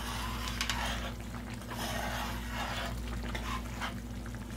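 Metal spoon stirring boiling jambalaya (rice, broth, pork and sausage) in a cast iron pot: soft wet sloshing swishes about once a second.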